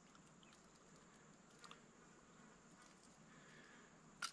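Near silence, with a few faint clicks and one sharper click near the end from hands working the lure's hooks out of a perch's mouth.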